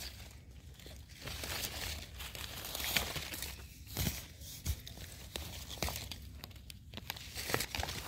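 Irregular rustling and crackling, with scattered sharp snaps, from hands digging and pulling termite mushrooms out of the ground.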